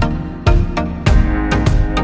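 Background music with a steady beat: a strong hit about twice a second over sustained instrument notes.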